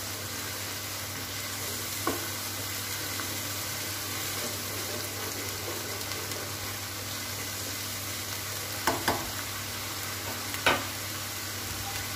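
Ground onion frying in hot oil in a karahi, a steady sizzle as it is browned. A spatula stirs it, scraping and knocking against the pan a few times, loudest about nine and eleven seconds in.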